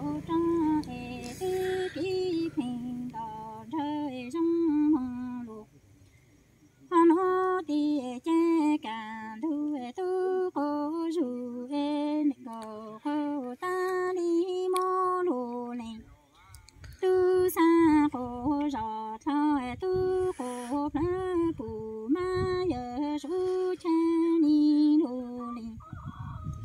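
A woman singing Hmong kwv txhiaj (lus txiaj sung poetry) unaccompanied, in long wavering held phrases, with short breaks for breath about six and sixteen seconds in.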